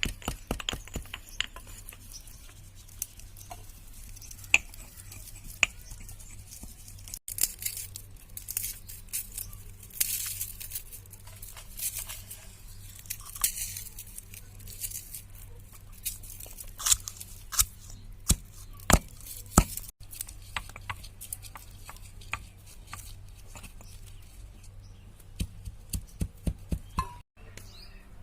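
Kitchen handling noises: irregular clicks, taps and clinks of utensils and dishes, with stretches of rustling and tearing, over a steady low hum.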